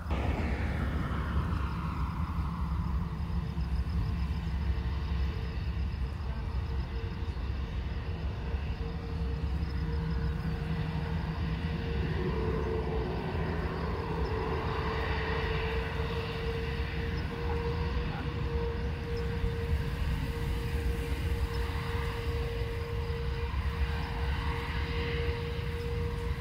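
Airbus A330neo's Rolls-Royce Trent 7000 turbofans at takeoff thrust: a steady low jet rumble with a constant hum, and a whine that falls in pitch over the first few seconds.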